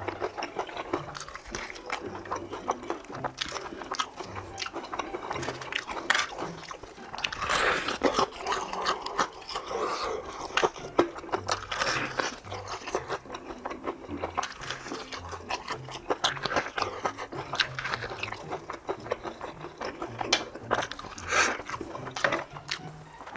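Close-miked mukbang eating: a person biting into and chewing crispy fried chicken, with a steady run of sharp crunches and chewing sounds.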